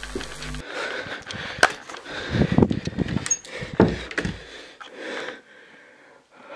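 A buzzing digital glitch sound effect cuts off abruptly half a second in. Then come rustling, handling noise and a few sharp knocks as a handheld camera is swung about in a small room, settling quieter near the end.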